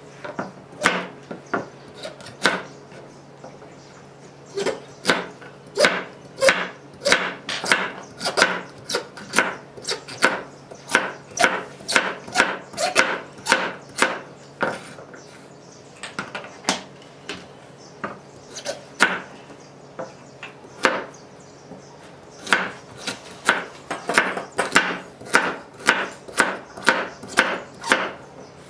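Cleaver-style knife chopping carrots into rounds on a wooden cutting board: a run of sharp knocks, about two a second, with a few short pauses.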